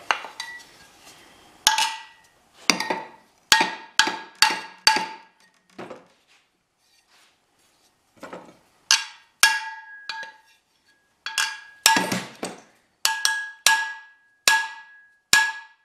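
A hammer strikes the brazed repair on an aluminum boat propeller blade in a strength test. There are about twenty sharp blows in two runs, with a pause of about two seconds between them. Each blow leaves the propeller ringing with a metallic tone, and the HTS-735-11 aluminum brazing rod repair holds under the blows.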